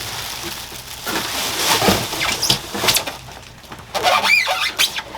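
Unboxing handling noise: rustling and scraping of packing material and the box, then a brief wavering squeak about four seconds in, like packing material rubbing.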